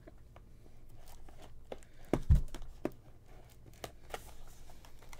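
Hands handling a cardboard trading-card hobby box: scattered light taps and scrapes, with one dull thump a little past two seconds in.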